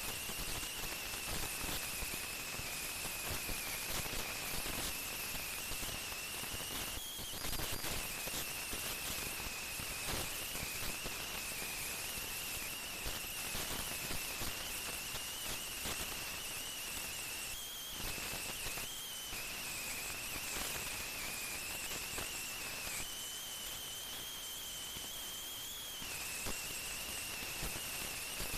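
Heavy earthmoving machinery working: a steady high whine that wavers and rises slightly in pitch a few times, over continuous crackling and crunching.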